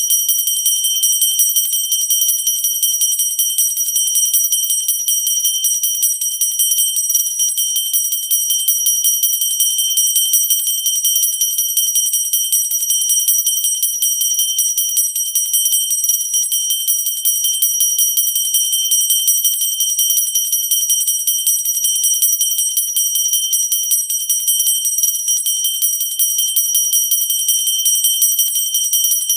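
Pooja bell ringing continuously with rapid, unbroken clapper strikes, a high, bright ringing tone held throughout.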